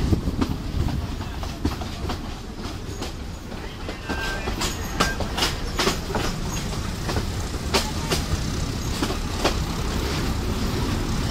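Passenger mail train running along the track: a steady low rumble with irregular clicks and knocks of the wheels over the rails.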